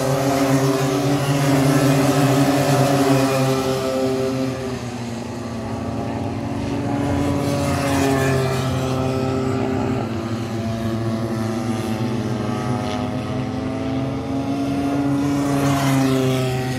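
Several racing karts' small two-stroke engines running around the track together, their overlapping notes rising and falling. The sound swells as karts pass close, about two seconds in and again near the end.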